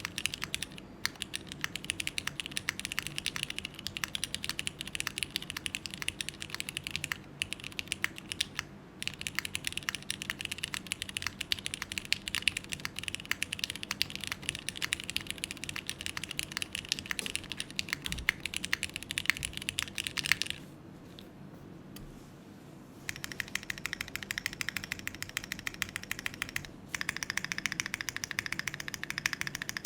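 Fast, continuous typing on a plateless Neo65 Core Plus mechanical keyboard with Cherry MX2A Black linear switches and GMK keycaps: a dense run of keystroke clicks. It breaks off for about two seconds around two-thirds of the way through, then resumes.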